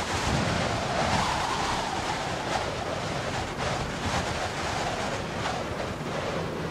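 Blizzard wind blowing: a steady rushing roar, with low gusts buffeting the microphone in the first second or so.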